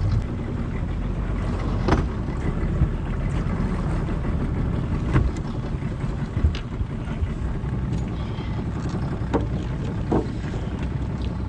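Steady low rumble of wind on the microphone aboard a small aluminium boat, with a few sharp knocks spread through it as a jug float and its rope are hauled in over the gunwale.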